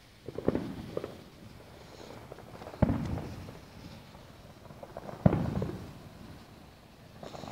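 Fireworks exploding: a quick cluster of cracks, then two heavier booms a few seconds apart, each dying away in a rolling rumble, with another burst starting near the end.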